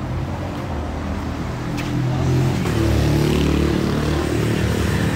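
A motor vehicle passing close by on the road, its engine sound swelling about two and a half seconds in.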